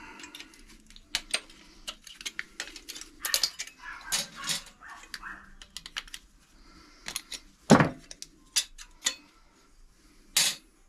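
Small metal parts of a dismantled microwave magnetron clicking and clinking as they are handled, with two louder knocks in the second half.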